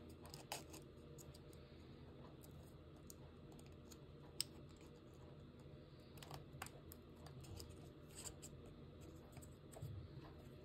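Near silence: a low room hum with scattered faint clicks and ticks, one sharper click about four seconds in.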